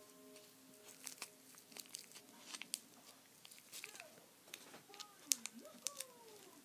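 White paper crinkling and crackling in irregular small snaps as it is folded and pressed by hand around a small foam block.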